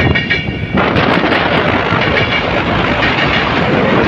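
Train running along the track at speed, heard from the front of the locomotive: a steady loud rush and rumble of wheels on rails with scattered clicks, swelling back up after a short dip in the first second.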